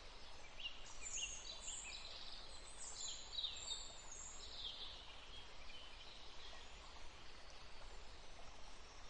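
Faint birdsong over a soft background hiss: a run of high chirps and short trills in the first half, thinning out after about five seconds.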